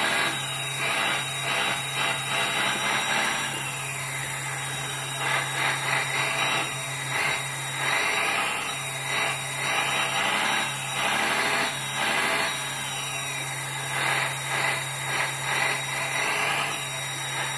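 Hydraulic pump and valves of a 1/14-scale Earth Digger 360L RC hydraulic excavator working as the boom, arm and bucket move, giving a whine that rises and falls with each movement. Under it the engine sound module plays a steady low engine drone through the model's speaker.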